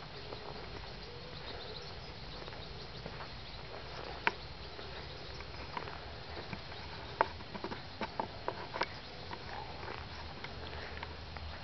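Quiet outdoor background hiss with scattered short sharp clicks and taps, a single one about four seconds in and a cluster of them from about seven to nine seconds in.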